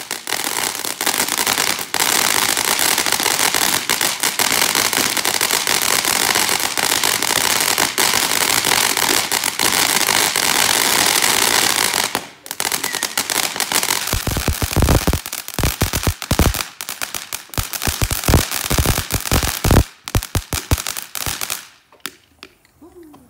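Phantom Fireworks 'Dragon Tears' fountain firework burning, a loud steady hiss of spraying sparks and crackle. About twelve seconds in the hiss breaks into a string of sharp crackling pops, which stop shortly before the end as the fountain burns out.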